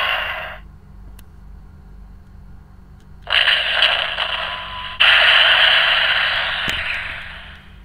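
Electronic sound effects from a DX Earth Garon robot toy's small built-in speaker, triggered by a short press: harsh, noisy mechanical-monster cries. A brief one cuts off just after the start, another begins about three seconds in, and a louder one starts at five seconds and fades away near the end.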